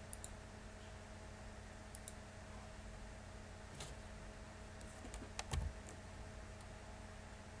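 Faint, scattered clicks of a computer keyboard and mouse, a few single taps and then a quick cluster with a soft bump about five and a half seconds in, over a low steady hum.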